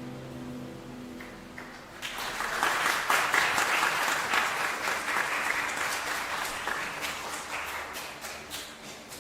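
A held final note of the music fades out, then a congregation applauds: the clapping starts about two seconds in, swells quickly and slowly dies away.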